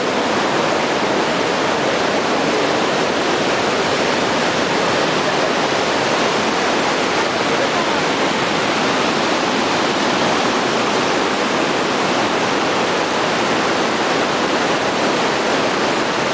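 Large waterfall roaring steadily, a loud, even rush of falling water close by.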